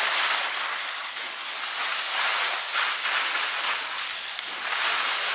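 Skis sliding and scraping over packed snow on a downhill run, with wind rushing over the microphone: a steady hiss that rises and falls a little with the turns.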